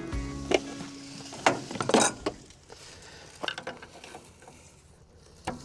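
Scattered metallic clanks and knocks, with a quick cluster about two seconds in, as of metal machine parts being handled by hand while no engine runs. The tail of a music sting fades out at the start.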